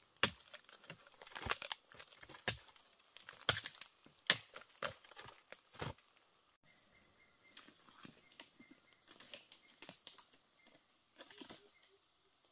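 Irregular crinkling and crackling handling noises, dense and sharp for about the first six seconds, then sparser and fainter.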